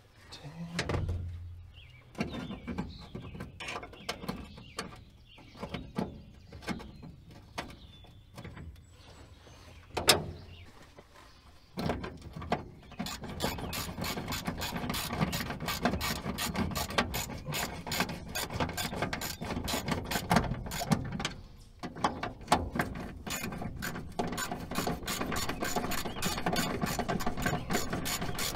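Hand ratchet wrench clicking fast and steadily through the second half, after scattered clinks and knocks of tools on metal, with a short pause about three quarters of the way through.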